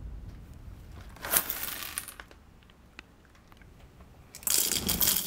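Roasted coffee beans poured from a foil bag, rattling into a hand coffee grinder's hopper, in a short rush about a second in and a louder, longer one near the end, with a few faint ticks of single beans between.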